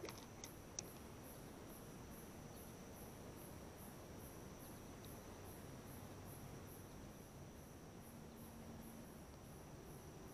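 Faint insects, likely crickets, calling from the pond edge: a steady high trill with a high pulsing chirp about two or three times a second. A few sharp clicks in the first second come from handling the spinning reel.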